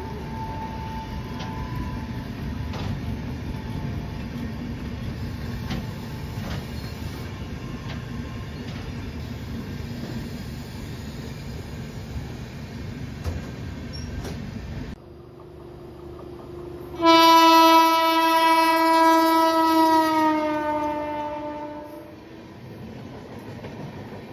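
Indian Railways passenger train running on the track, a steady rumble with clicks from the rail joints. After a sudden break, a locomotive horn blows one long, loud note for about four seconds, its pitch sliding down near the end.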